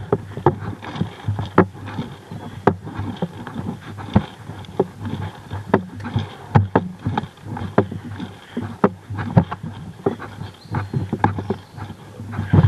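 Footsteps of a player on foot, irregular knocks and clicks about two a second, over a low steady hum.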